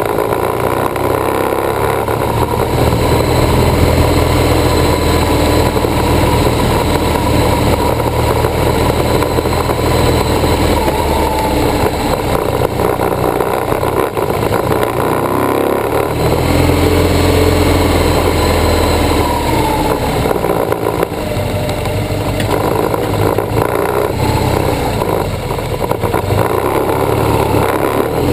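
BMW R1200GS boxer-twin engine running as the motorcycle rides along, its low note dropping away twice (about halfway through and again about three-quarters of the way), over wind and road noise and the rattle of a broken camera mount.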